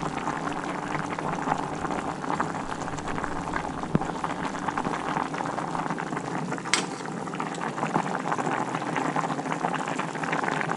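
Pot of white beans and vegetables boiling hard on a high flame, bubbling and popping steadily. Two sharp clinks of the ladle against the pot come a few seconds apart as whole tomatoes are fished out of the boil.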